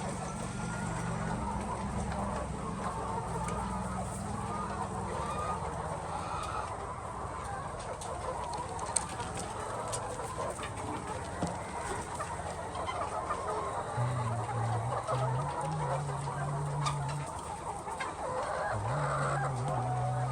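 A flock of chickens clucking continuously, many overlapping calls at once.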